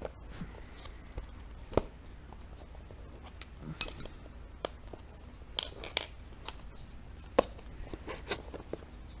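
Small parts and tools being handled on a workbench: scattered irregular clicks and taps, with one louder metallic clink that rings briefly near the middle.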